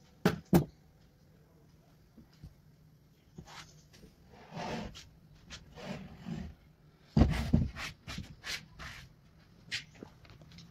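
Two sharp knocks, then short scraping and rubbing noises, with a cluster of louder knocks about seven seconds in.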